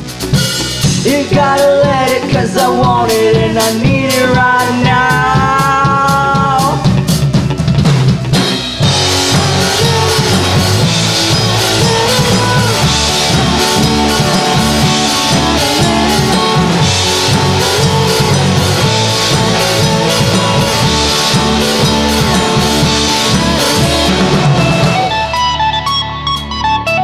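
Indie rock band playing live: drum kit with cymbals, electric guitar and bass. The full band comes in hard about eight seconds in, and near the end it drops back to a thinner passage led by electric guitar.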